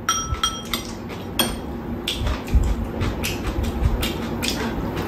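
Metal spoons and chopsticks clinking and tapping against ceramic bowls while eating, a run of light clinks, a few of them ringing briefly near the start.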